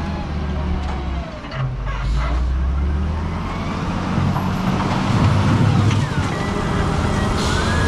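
Diesel engine of a JCB backhoe loader running under load while it clears snow off the road, its engine note shifting a few times as it works.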